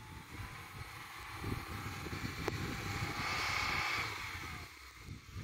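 Lada Niva's engine revving as it ploughs through deep snow, its pitch rising and then falling and loudest three to four seconds in, over a low rumble of wind on the microphone. A single sharp click about two and a half seconds in.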